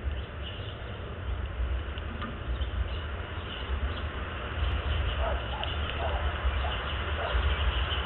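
Steady outdoor background noise: a low, fluctuating rumble under a hiss, with a few faint short sounds in the second half.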